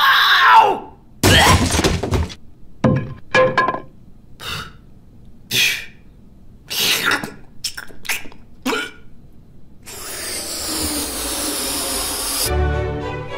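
Cartoon sound effects: a short falling glide, then a crash, followed by a string of short knocks and squeaks spread over several seconds, and about two seconds of hiss near the end.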